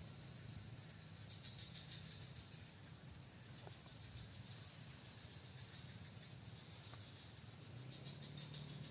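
Faint outdoor ambience: a steady high-pitched insect drone over a low, even rumble.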